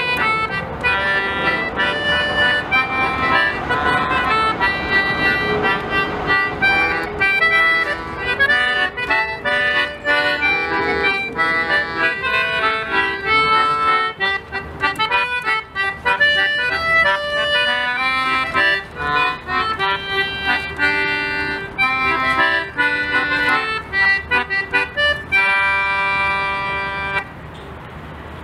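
Concertina playing a tune, a reedy melody over chords, ending on a softer held chord near the end.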